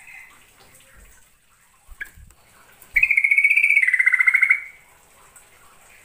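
Yellow-vented bulbul singing: a short sharp note about two seconds in, then one loud, rapid trilled phrase of under two seconds that steps down a little in pitch halfway through.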